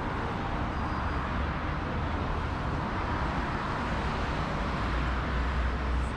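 Steady city street traffic noise: car engines and tyres rumbling, swelling a little near the end.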